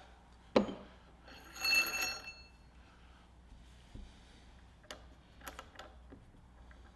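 Metal workshop parts being handled: a sharp knock, then a brief bright metallic ring about a second and a half in, followed by a few light clicks.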